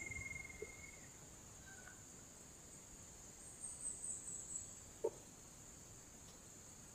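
Faint, steady high-pitched drone of insects, with a rapid trill that fades out about a second in and a short soft click about five seconds in.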